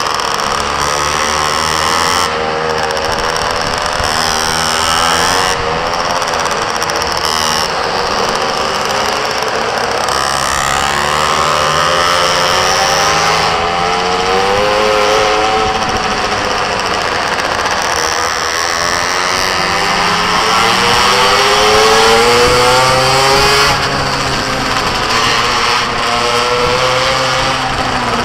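Small engine of a mini moto racing bike running hard through laps, its pitch repeatedly rising and falling as it revs up on the straights and drops for corners.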